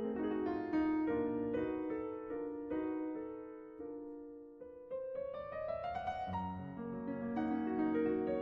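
Piano background music playing a gentle melody, briefly dipping in loudness a little past halfway before a new phrase rises and picks up again.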